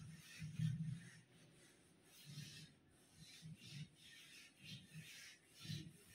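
Whiteboard eraser being wiped back and forth across a whiteboard, making a faint series of short rubbing strokes, about two a second.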